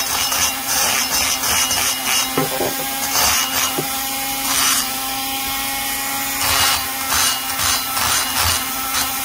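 Handheld rotary tool running at a steady high speed with a small burr, grinding and dressing the aluminium intake port of an Echo CS-670 chainsaw cylinder. There is a constant motor whine, with repeated scratchy grinding bursts each time the burr cuts into the port wall.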